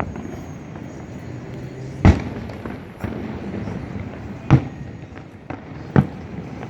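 Fireworks shells bursting: three loud booms, about two, four and a half and six seconds in, with fainter pops between them.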